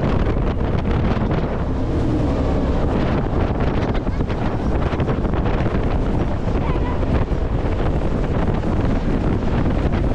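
Heavy wind buffeting the microphone on a speeding Shotover jetboat, a steady loud rush that covers the boat's engine and the water.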